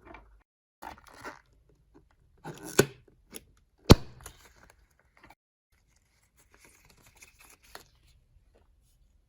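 Wrapper of a Kinder Joy egg being torn open and crinkled, with a single sharp loud snap about four seconds in.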